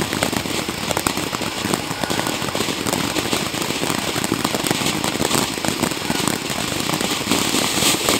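A 200-gram consumer fountain firework (Pyro Planet Prismatic) burning: a steady spraying hiss thick with rapid crackles and small pops from its strobe effects, a little louder near the end.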